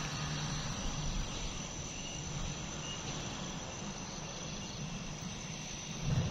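Night insects, crickets among them, chirring in short high trills over a steady hiss. Near the end there is one brief low thump.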